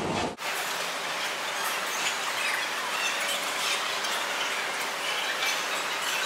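Steady ambient noise of a large airport terminal hall: an even hiss with scattered faint, short high squeaks.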